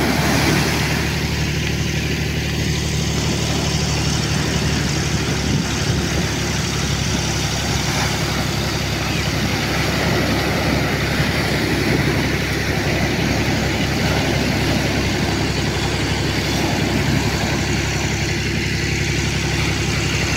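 Tractor engine running steadily, with surf breaking on the beach.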